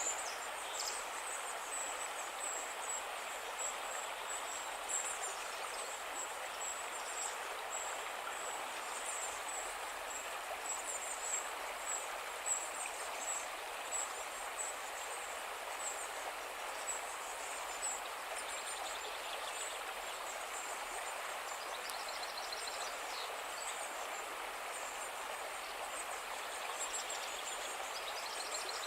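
Calm river flowing, a steady rush of water. High-pitched chirps repeat over it, with a couple of brief trills in the later part.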